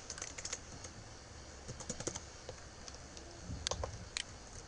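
Faint clicking of a computer keyboard and mouse, a few scattered strokes in small clusters.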